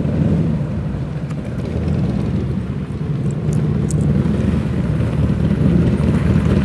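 Several motorcycle engines rumbling at low speed as a group of bikes rolls in together, a steady deep rumble that grows slightly louder.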